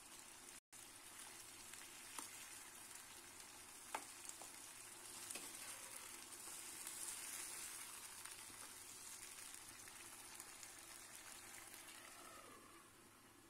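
Meat and potato curry sizzling faintly in a non-stick pan while a ladle stirs it, with a couple of sharp clicks of the ladle against the pan.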